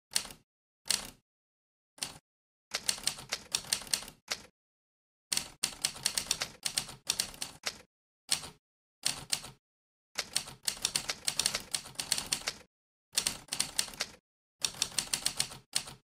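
Sampled vintage typewriter key strikes from a typewriter-sound app, one sharp clack for each keypress. They come singly and in quick runs of several strokes, with pauses of dead silence between the runs.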